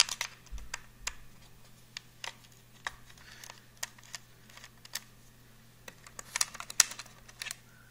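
Scattered light clicks and taps of a laptop and its small parts being handled, with a quicker run of clicks about six to seven seconds in.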